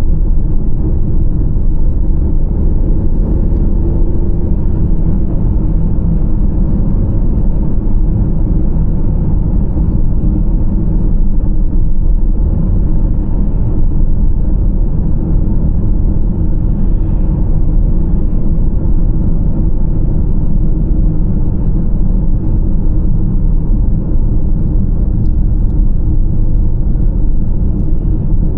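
Steady low rumble of a car driving at speed: road, tyre and engine noise heard inside the cabin.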